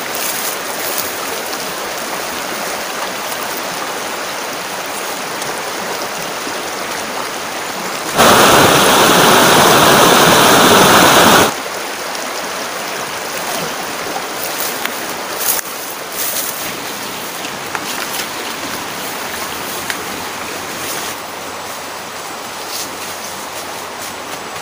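Shallow river flowing over stones: a steady rush of water. Partway through, a much louder rushing noise lasts about three seconds, then cuts off abruptly.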